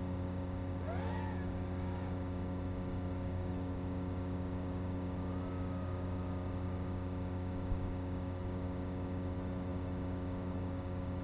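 Steady electrical buzz made of many unchanging tones, the kind heard on the audio channel of an analog FPV video link. A brief call that glides up and down comes about a second in, with a fainter one just after, and there is a single click near the end.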